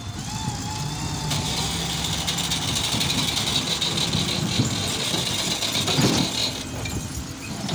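Massey Ferguson 260 tractor's diesel engine working hard under load as the tractor pulls a loaded trolley forward, getting louder about a second in and easing off near the end, with a thump about six seconds in.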